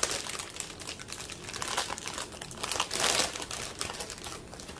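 Clear plastic bag crinkling as hands open and handle it, along with the bagged packets of diamond painting drills inside. It comes in irregular crackles, louder about two seconds and three seconds in.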